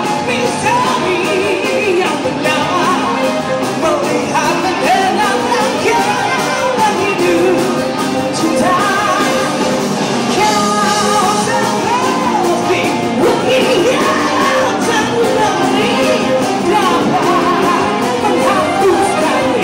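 A rock band playing with a lead vocalist singing over it.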